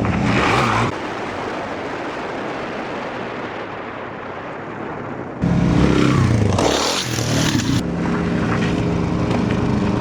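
Motor vehicle engine running, heard in several edited shots with abrupt changes in level: a sudden louder stretch at about five and a half seconds, then a steady engine hum through the rest.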